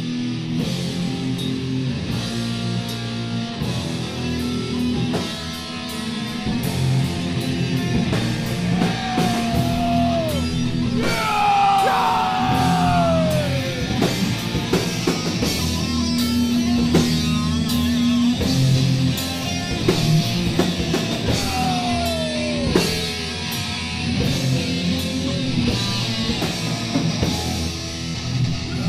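Heavy metal band playing live: distorted electric guitars, bass and a drum kit hit fast, with a few long notes that slide down in pitch along the way.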